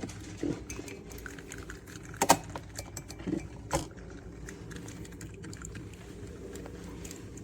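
A few sharp clinks and knocks over a steady low hum, the loudest about two seconds in and another more than a second later.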